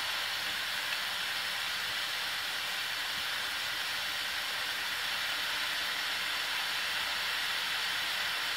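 A spray nozzle atomizing liquid under pressure into a fine upward mist, making a steady, even hiss.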